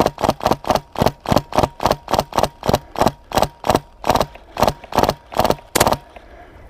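Airsoft MK46 firing a long string of rapid single shots, about four to five a second, that stops about six seconds in.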